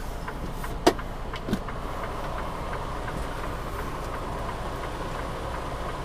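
Semi-truck diesel engine idling steadily, heard from inside the cab with the driver's door open, with one sharp click about a second in.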